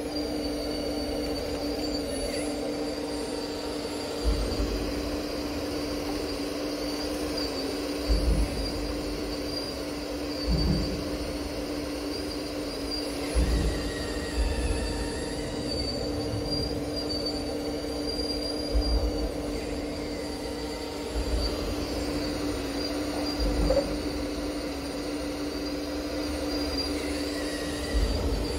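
Remote-controlled Liebherr 954 model excavator's motor drive whining steadily as it digs, with a high thin whine over a lower hum. Dull low thumps come every few seconds, about nine in all.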